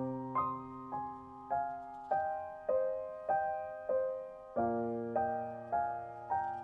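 Background music: a slow, gentle piano melody, single notes struck a little under twice a second, each ringing and fading before the next.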